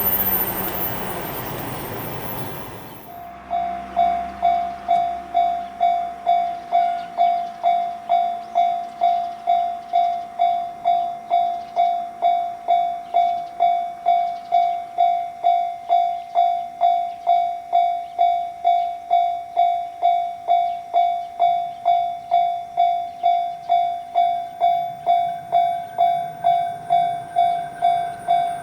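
A passing train for about three seconds, then an abrupt change to a Japanese level-crossing alarm ringing its steady 'kan-kan', a clear struck tone about twice a second.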